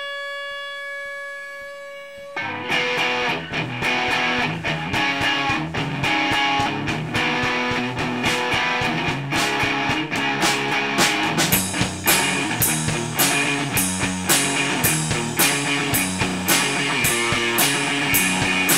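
Outro music: one held note, then about two seconds in a guitar-led band with drums comes in on a steady beat.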